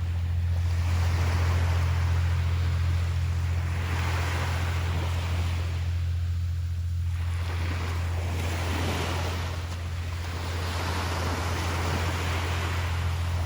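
Ocean waves washing onto a beach, the surf swelling and fading every few seconds, over a steady low hum.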